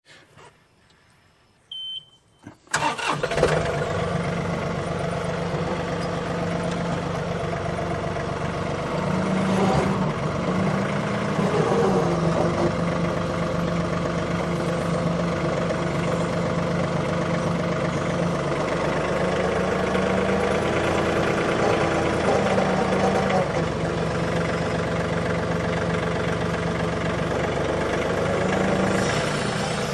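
A short high beep, then a vehicle engine starting about three seconds in and running steadily, its speed rising and falling a few times.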